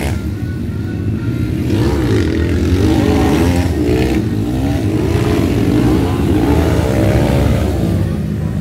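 Motocross dirt bike engines revving as the bikes ride the track, their pitch rising and falling with the throttle, more than one engine at once.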